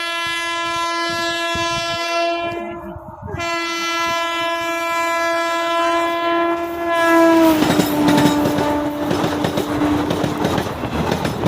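Express train's locomotive horn sounding long, steady blasts with a brief break about three seconds in. Around seven seconds in the horn drops slightly in pitch as the train passes close, and loud rumbling and clattering of wheels on the rails takes over.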